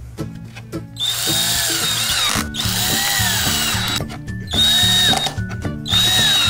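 Cordless drill driving screws into a drawer panel in four short runs, each about a second long, its whine sagging in pitch as the screw bites and then recovering. Background music with a bass line plays underneath.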